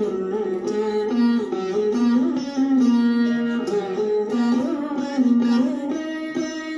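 Saraswati veena played solo in Carnatic style: a plucked melody whose notes bend and slide between pitches (gamakas), with fresh plucks every second or so.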